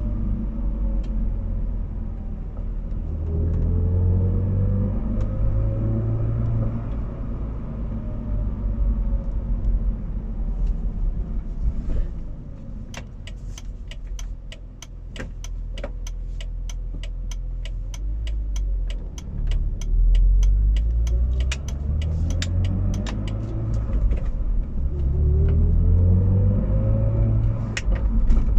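BMW Z4 driving with a steady low rumble. Twice, a hum from the rear end rises in pitch as the car accelerates from low speed; its cause is not known. For about ten seconds in the middle, sharp ticks repeat about twice a second.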